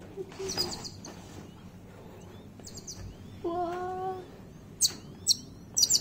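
Small birds chirping in short, very high clusters about half a second in, near three seconds, and several times near the end, the last cluster the loudest. A brief low voice-like sound comes about halfway through.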